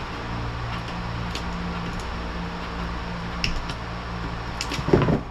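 Steady low mechanical hum in a small room, with a few faint ticks and a louder clatter of knocks near the end, as of metal window parts being handled.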